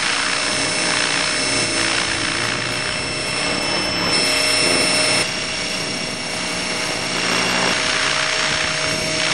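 Electric Ion-X RC helicopter's motor and rotors running close to the camera it carries: a steady high whine over a rushing hiss, shifting slightly in pitch and dipping a little about five seconds in.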